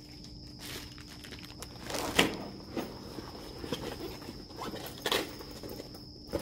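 A leather-like soft carrying case being opened and rummaged through by hand: scuffing and rustling with a few sharp knocks, the loudest about two seconds in and again about five seconds in. A faint steady high whine runs underneath.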